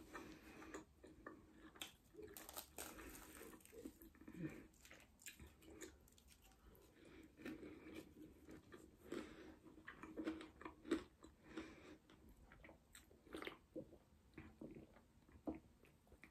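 A person biting into and chewing a fried vegetable samosa, with quiet, irregular crunches and mouth clicks.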